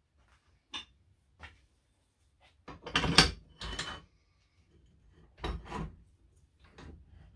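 Metal clunks and scrapes of a small wood lathe's tool rest and its base being slid and locked into place, with a few light clicks first. The loudest scraping clatter comes about three seconds in, and another pair of clunks comes about five and a half seconds in.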